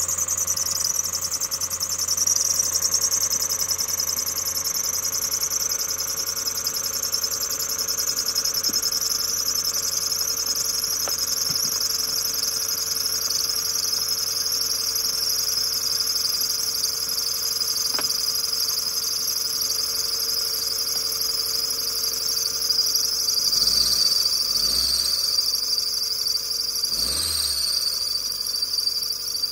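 Toyota Starlet engine idling after a cold start on a booster, with a steady high-pitched whine over it that slowly drops in pitch. Near the end it revs briefly three or four times.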